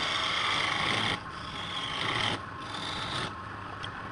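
Abrasive rubbing on wood in three strokes, each about a second long, over a steady hum underneath.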